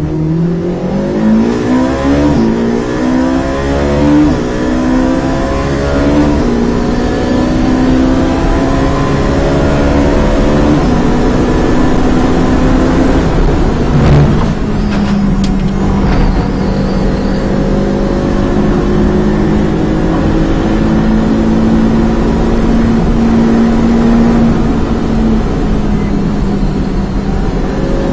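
Ferrari 458 Challenge's 4.5-litre V8, heard from inside the cockpit, accelerating hard through the gears with quick upshifts in the first several seconds. About fourteen seconds in a brief sharp knock breaks the note. After it the engine runs at high speed with a nearly steady pitch.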